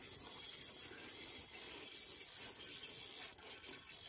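Fishing reel being cranked with a soft, irregular mechanical clicking as a hooked whitefish is reeled in.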